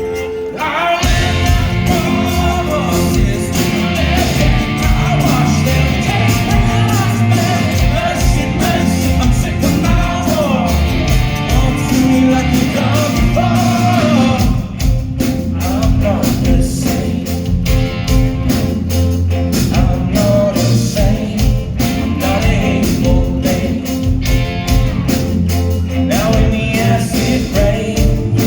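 A rock band playing live with a lead vocal over electric guitars, bass and drums. About halfway through the texture thins for a moment and the drum hits stand out, then the full band continues.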